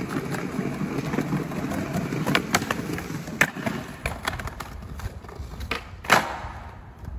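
Skateboard wheels rolling over stone paving slabs with a steady rumble, broken by several sharp clacks; the loudest clack, about six seconds in, is the board's tail hitting the ground as a trick is popped or landed.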